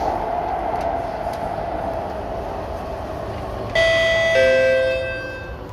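SMRT C751B train's running noise fading as it slows into the station, then about four seconds in a loud two-note descending chime rings out in the carriage, the train's door chime.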